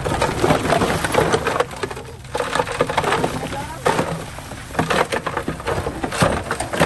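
Bulldozer pushing dirt and stone, with dense crunching and cracking of soil and rock under the blade and tracks over the engine's low running hum.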